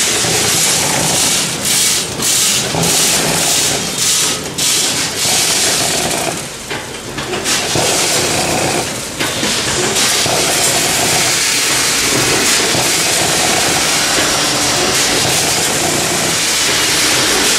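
Multihead weigher of a cat food packaging machine running: steady loud machine noise with a strong hiss, dipping briefly about six to seven seconds in.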